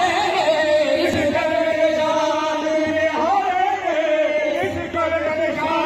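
A group of men chanting a devotional song with held, wavering notes, over steady beats of a hand drum.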